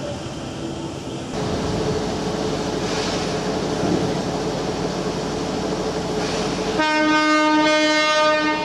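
Steady train running noise with a constant hum, then a train horn sounds once, a single held note for nearly two seconds near the end.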